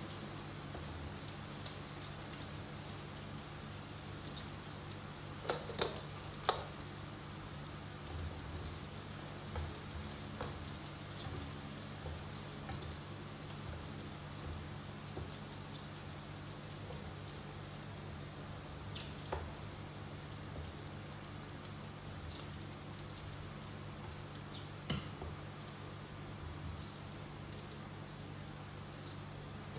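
Potato sticks frying in hot oil with a steady sizzle, during the first of two fries for crisp fries. A few sharp clicks, the loudest about six seconds in, come from the metal slotted spoon and chopsticks against the pan.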